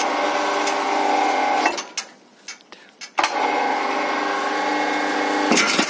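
Electric scaffold hoist motor running in two spells, a steady humming whine. It cuts off less than two seconds in, then starts again about a second and a half later and runs for about two and a half seconds before stopping.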